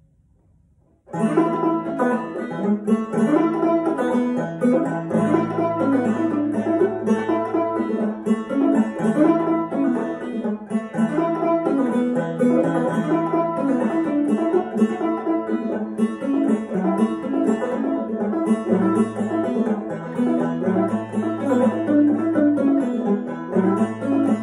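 Custom Dogwood Banjo Company fretless banjo played in Round Peak clawhammer style, strung with heavy strings and tuned low to eAEAB. The playing begins about a second in with a steady, busy run of plucked notes over a low repeating drone.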